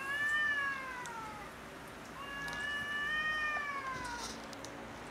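Two cats in a territorial standoff, yowling: two long drawn-out wails, the first falling away about a second and a half in, the second from about two seconds to four, each rising a little and then sliding down in pitch.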